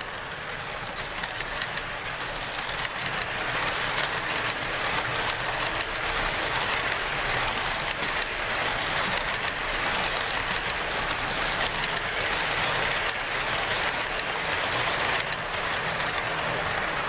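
Empty HO-scale model coal hopper cars rolling past on the track: a steady rolling rattle of small wheels on the rails, growing louder a few seconds in.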